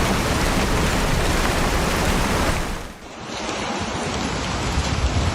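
Steady rushing noise of a heavy rainstorm with wind, broken by a brief drop about three seconds in where the recording cuts to another stretch of storm noise.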